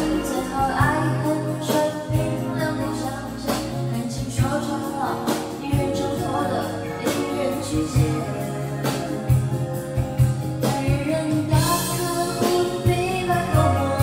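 Karaoke: a voice singing into a microphone over a backing track with a steady beat.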